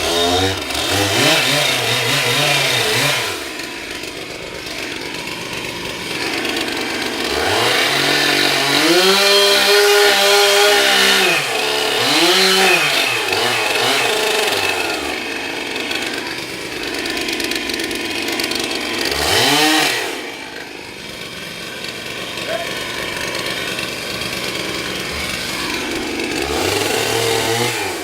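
Chainsaw engine revving up and down repeatedly as it cuts, its pitch climbing to a high whine several times, mostly through the middle, and dropping back in between.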